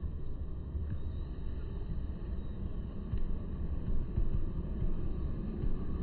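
Steady low rumble of outdoor background noise, with no bird calls.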